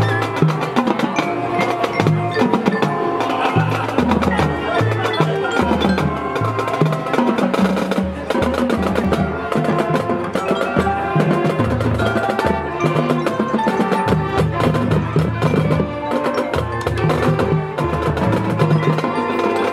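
High school marching band playing its field show: brass, saxophones and sousaphone over marching drums, with mallet percussion from the front ensemble.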